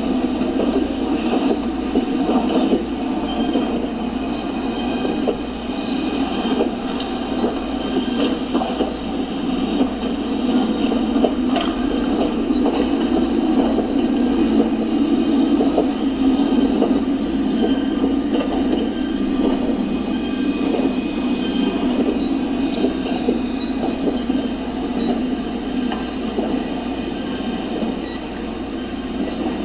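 HO scale model North Shore Line Electroliner trainset running along the track, a steady rolling rumble with many small rapid clicks from the wheels on the rails.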